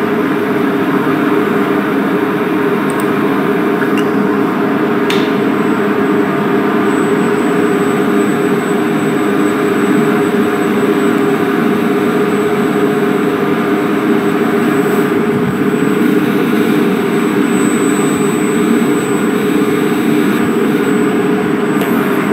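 Steady mechanical hum with an even background noise that does not change, and a couple of faint clicks about four and five seconds in.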